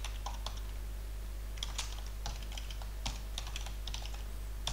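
Typing on a computer keyboard: quick, irregular keystrokes in short clusters as a line of code is entered.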